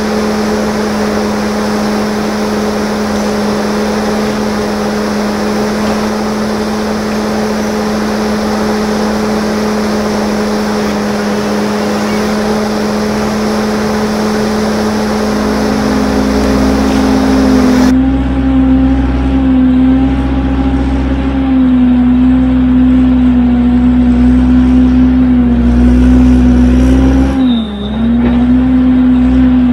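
Diesel engine of a heavy forestry machine running steadily and loudly. About two-thirds of the way through the sound changes abruptly to a louder engine whose pitch wavers slightly, with a brief dip near the end.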